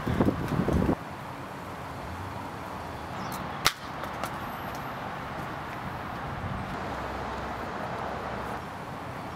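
Outdoor wind and background noise, rougher and louder for the first second, then steady. About three and a half seconds in, a single sharp click as a small object drops onto the pavement.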